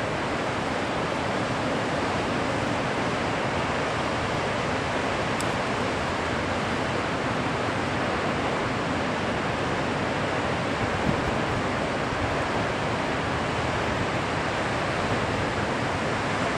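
Steady, even rush of breaking surf and wind, with no single wave crash standing out.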